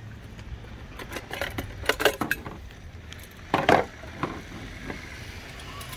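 Light metal clinks and plastic knocks of a compact folding camp gas stove being lifted out of its plastic case and handled, scattered and irregular, with the loudest knocks about two seconds and three and a half seconds in.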